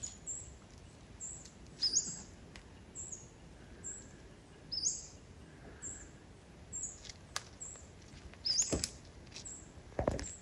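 A small forest bird calling with short, high, falling chirps, roughly one a second. Two or three sharp snaps or cracks come near the end.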